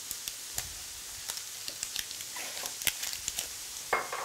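Onions frying in butter in a pan: a steady sizzle with scattered crackles and pops. Near the end, a short knock as a steel measuring cup is set down on the table.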